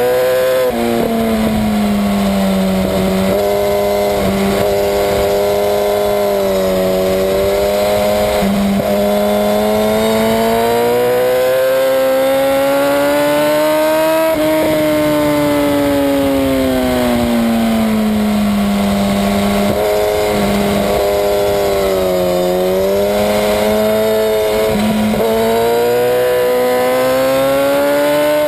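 Sport motorcycle engine at high revs on a track lap, its pitch climbing under acceleration and sinking as the bike slows for corners, with a few brief breaks and jumps in pitch at gear changes.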